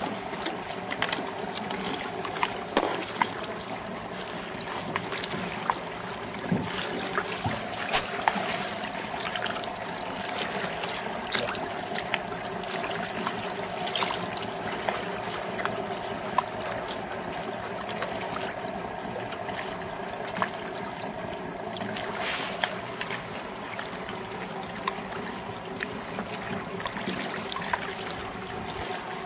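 A steady motor hum with water trickling, broken by scattered sharp clicks and crackles.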